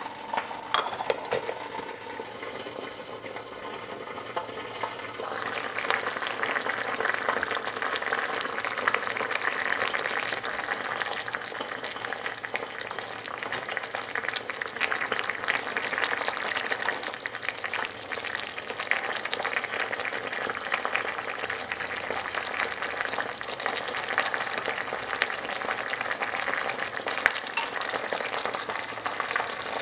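A tiny pot of stew simmering with a steady crackling bubble, while a small wooden spoon stirs and scrapes against the enamel pot. The bubbling gets louder about five seconds in.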